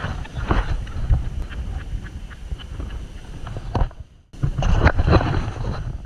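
Heavy rumbling and buffeting on the camera's microphone, with a few knocks, cutting out briefly about four seconds in.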